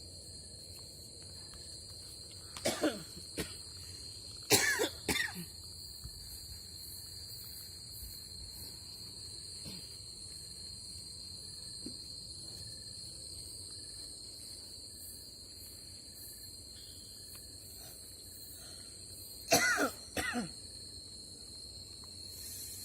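A steady, high-pitched chorus of night insects shrilling, over low water noise. Short loud vocal bursts break in three times: twice in the first few seconds and once near the end.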